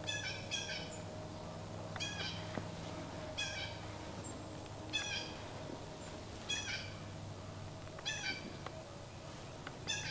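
A squirrel barking: short, sharp calls repeated about every second and a half.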